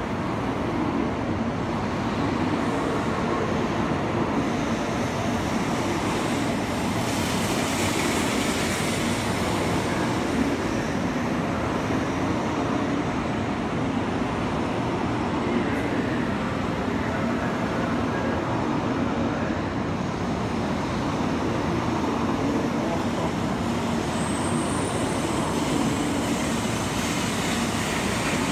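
N700 Series Shinkansen train rolling slowly along the platform as it pulls in: a steady rumble and hiss of wheels on rail and running gear. A faint high-pitched tone comes in near the end.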